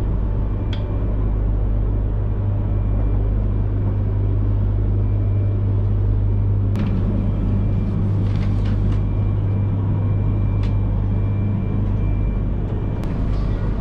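Steady low rumble and hum of the Genbi Shinkansen car's interior, with a few faint clicks.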